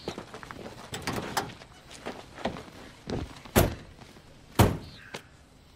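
Car door being opened and shut as someone gets in: a few lighter knocks and clicks, then two heavy thuds about a second apart.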